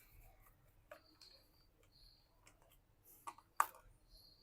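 A few faint, sharp clicks and taps of a small hex screwdriver and loose screws against a laptop's base cover while its screws are being removed, the loudest click shortly before the end.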